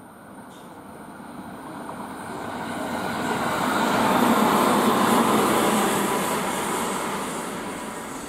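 Two-car local electric train passing on the Yosan Line: the rumble of its wheels on the rails and its running gear swells, is loudest about halfway through as it goes by, then fades as it runs off into the distance.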